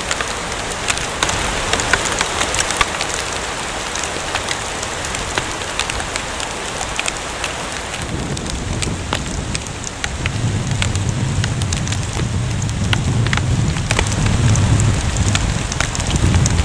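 Hailstorm pelting down: a dense steady hiss dotted with many sharp ticks of hailstones striking. A low rumble joins from about ten seconds in.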